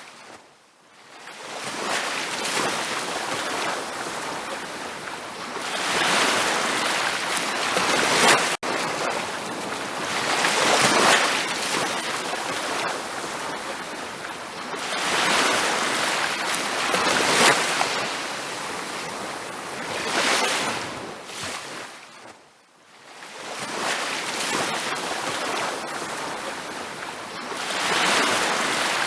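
Ocean surf washing onto a beach, a steady hiss that swells and ebbs every few seconds as waves come in. It fades almost to nothing about a second in and again near the end of the second third.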